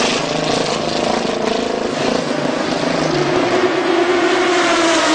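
Audi R15 TDI race car's turbodiesel V10 running as the car leaves its pit stop. The engine note grows stronger about three and a half seconds in as it pulls away.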